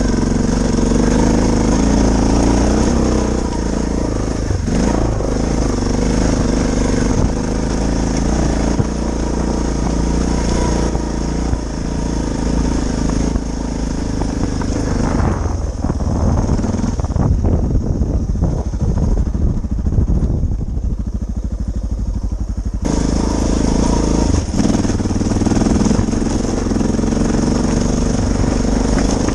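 Suzuki DR650's single-cylinder engine running steadily under way on the motorcycle. Its sound goes duller for several seconds in the middle before picking back up.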